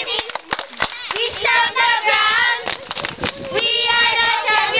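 A group of children singing a chant in two phrases, with sharp hand claps in the gaps between them.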